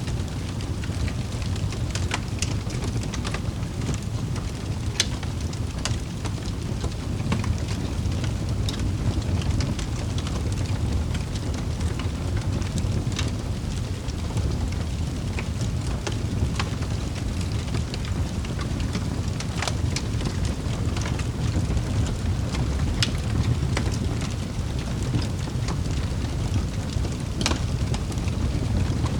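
Wood fire burning in a fireplace: a steady low rush of flames with scattered sharp crackles and pops at irregular intervals.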